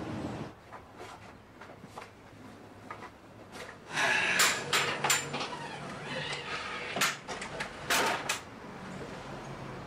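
Wooden doors and louvred shutters being handled and opened: scattered light clicks, then two louder spells of knocking and rattling, about four and about eight seconds in.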